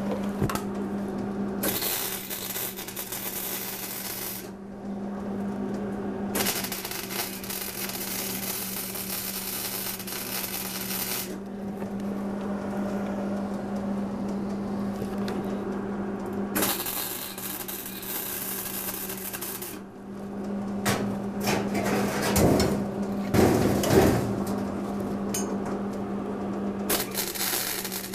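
Hobart wire-feed (MIG) welder striking an arc on steel: the welding hiss comes in runs of a few seconds each with short pauses between, several times over, above a steady low hum.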